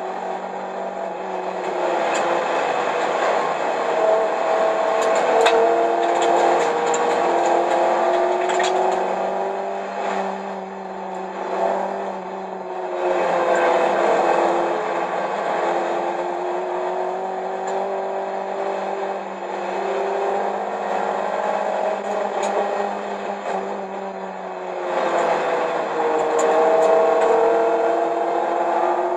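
1995 Plymouth Neon ACR's 2.0-litre SOHC four-cylinder engine, heard from inside the cabin, driven hard on a road course. Its pitch climbs and falls repeatedly, dropping back about ten seconds in and again near the end before climbing once more.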